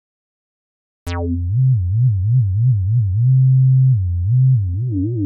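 A 303-style acid synth built in Ableton's Operator plays a low monophonic line with portamento glide. After about a second of silence it enters with a bright, quickly closing filter attack, then its pitch slides up and down in a steady wobble of about three swings a second, holding one note briefly in the middle.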